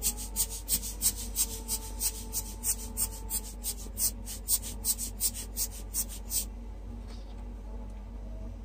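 A hand-held tool worked against alcohol-ink paper in quick hissing strokes, about three a second, which stop about six seconds in.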